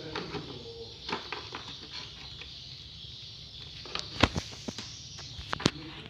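Scattered clicks and knocks of tool parts and packaging being handled, the sharpest about four seconds in and another pair near the end, over a steady hiss.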